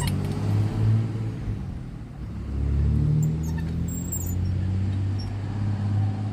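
Engine of a lever-operated earth-moving machine running and working. Its note dips and then rises and strengthens about two and a half seconds in, as it takes load.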